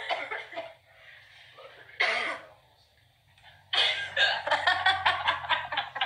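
A young woman's hiccups: one sudden vocal hiccup about two seconds in, then from nearly four seconds on a long run of rapid breathy vocal bursts with laughter mixed in.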